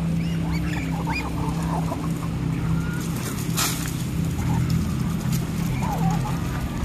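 A feeding flock of Muscovy ducks and chickens making scattered soft, short calls over a steady low hum. One sharp click or knock about three and a half seconds in.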